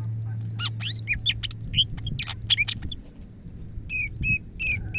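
Cucak ijo (green leafbird) singing: a fast run of varied whistles sweeping up and down, then a few short, evenly repeated notes near the end.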